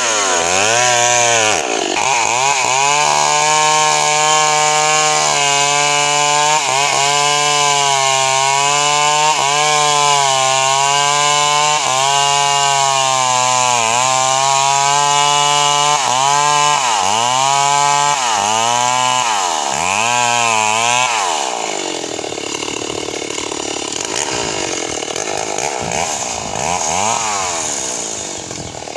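Stihl MS 381 two-stroke chainsaw at full throttle cutting through a kapok log, its pitch dipping briefly as the chain bites and recovering. Several quick revs down and up follow, then about three quarters of the way in it drops to idle.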